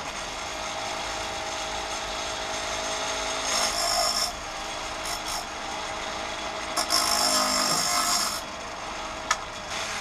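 Sawmill blade sharpener's grinding wheel spinning on its electric motor while a diamond dresser is held against it, cutting the wheel from a square edge to a shaped profile. A steady motor hum with gritty scraping, louder around four seconds in and again near eight seconds.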